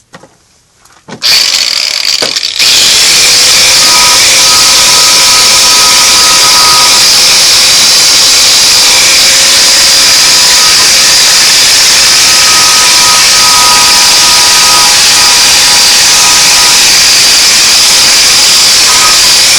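Handheld power tool starting about a second in, coming up to full speed and then running steadily as it grinds rust off the bare engine block of a John Deere Type E hit-and-miss engine.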